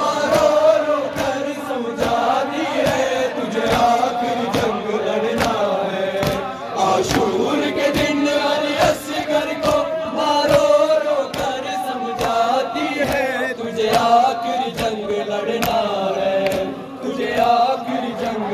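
A crowd of men chanting an Urdu noha in unison. Rhythmic sharp slaps of matam, hands beating on chests, about twice a second, keep time with it.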